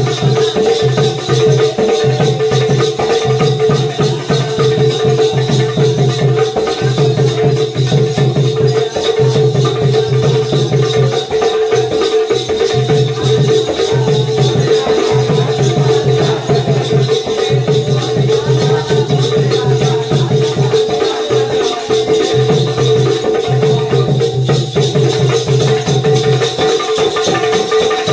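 Music for a Konkan Jakhadi folk dance: a steady held drone over a low beat that repeats about once a second, with a shaking rattle throughout.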